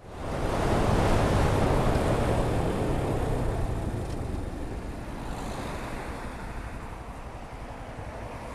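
Wind noise on a motorcycle camera's microphone fitted with a deadcat muffler, over the motorcycle's running and road noise. It is loudest in the first few seconds, then eases to a lower steady rush.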